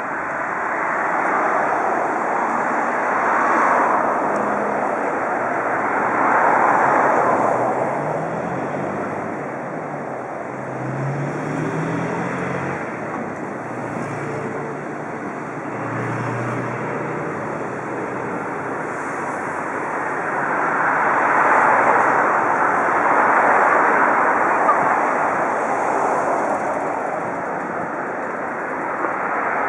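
Road traffic: a continuous rush of passing cars that swells and fades several times as vehicles go by.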